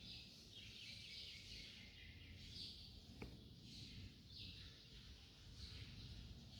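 Faint bird chirping, short high calls every second or so against near silence, with one faint click about three seconds in.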